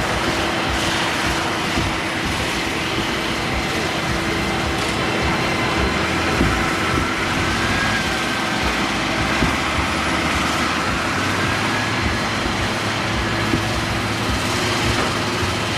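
Farm machinery running steadily during silage harvesting and baling: a continuous engine drone with a fixed hum and a faint wavering whine above it.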